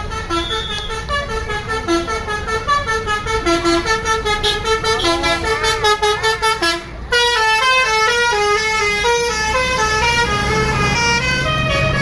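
A bus telolet horn, the multi-tone tour-bus horn, playing a quick tune of short stepped notes as the bus passes. The tune breaks off briefly about seven seconds in, then starts again. The bus's engine rumbles underneath and grows louder near the end.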